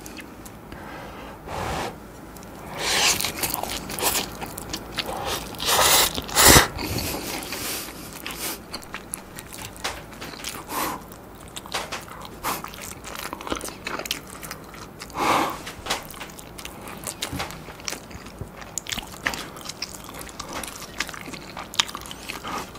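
Eating cheese-topped instant ramyeon noodles: the noodles are slurped in, loudest about three and six seconds in, followed by steady chewing.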